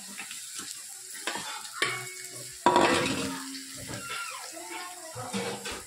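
Hot oil sizzling in a pan while spices are stirred in with a spoon: a tempering of cumin and asafoetida, with the ground spice mix just added. A sharp knock comes a little under two seconds in, and a louder one follows under a second later.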